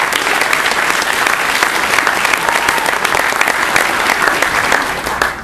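Audience applauding, dense steady clapping that dies away near the end.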